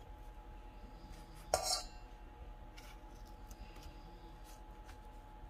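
Kitchen knife slicing melon over a stainless steel bowl: one short metallic clink with a brief ring about a second and a half in, then a few faint soft cuts.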